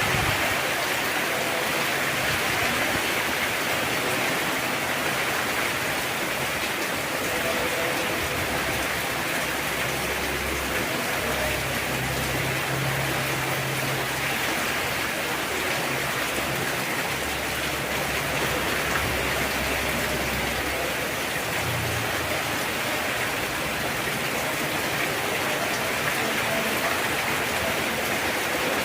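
Heavy rain pouring down steadily, an even hiss of falling water, with a faint low rumble under it for a stretch in the middle.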